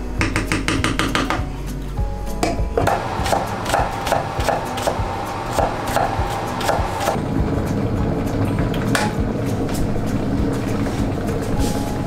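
A kitchen knife chopping vegetables on a wooden cutting board, a steady run of quick strokes, over background music.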